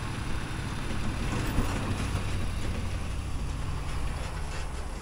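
Motor vehicle driving, a steady low rumble of engine and road noise.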